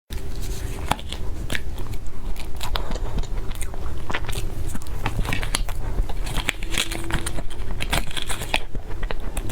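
Close-miked biting and chewing of crunchy food, a steady run of irregular crackling crunches and clicks.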